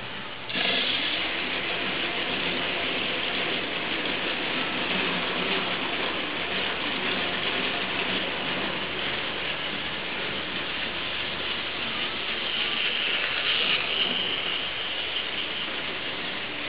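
Plarail battery-powered toy train running on plastic track, its small motor and gearbox making a steady whirring clatter. The sound jumps suddenly louder about half a second in.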